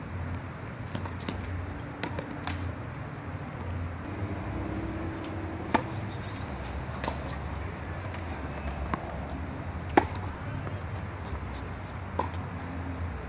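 Tennis ball strikes on racket strings and bounces on a hard court: a handful of sharp pops a second or more apart, the loudest about six and ten seconds in, over a steady low hum.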